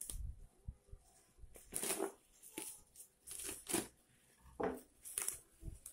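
Black plastic parcel wrapping being slit with a knife and pulled open by hand: a series of short, irregular rustling and ripping strokes.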